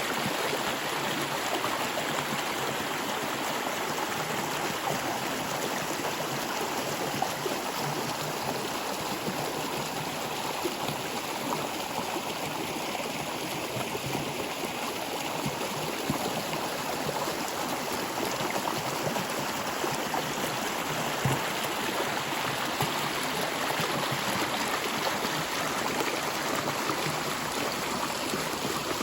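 Stream water flowing and trickling steadily, with a continuous rushing sound and small gurgles.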